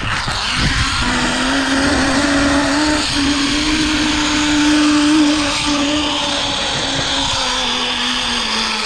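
Zip-line trolley pulleys running along the steel cable: a steady whine that creeps up in pitch through the first half, then sinks as the trolley slows toward the end. Wind rumbles on the microphone underneath.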